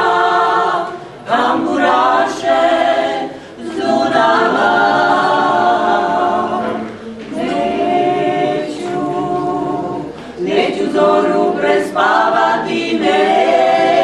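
Small group of women singing a cappella in harmony, several voices together, in long phrases broken by short breaths.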